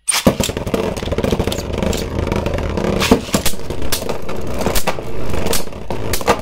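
Two Beyblade Burst spinning tops launched into a plastic stadium together, then spinning and grinding on the floor with repeated sharp clacks as they hit each other.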